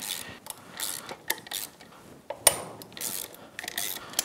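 Socket ratchet clicking in short runs as the cylinder head bolts of a Honda Grom engine are loosened, with light metal tool handling between strokes.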